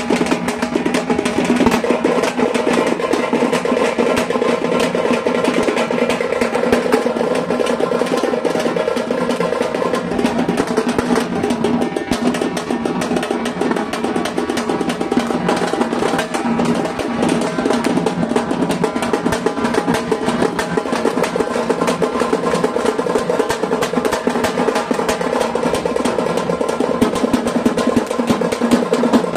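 Several hand-held frame drums beaten with sticks in a fast, continuous rhythm of celebration drumming.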